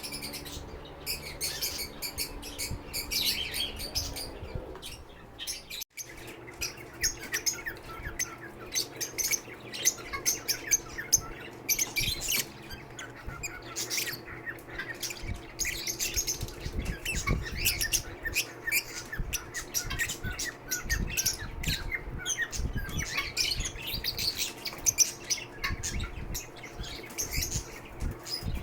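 Lovebirds chirping and squawking in a rapid, continuous chatter, with a brief gap about six seconds in.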